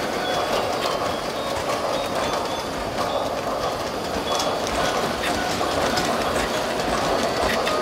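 Toy Christmas steam train running on its floor track as the locomotive and cars pass close by: a steady motor and wheel running noise with occasional light clicks over the rails.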